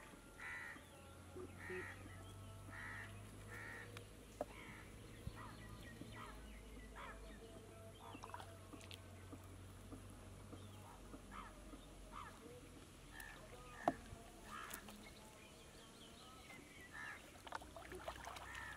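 Birds calling in the background: a run of short calls, about one or two a second, over the first few seconds, then scattered calls for the rest. Small clicks and light water sounds from fish being picked out of a wet nylon gill net over a plastic basin come and go.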